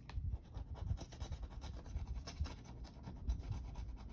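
Rapid scratching strokes on a scratch-off card, its coating coming off smoothly.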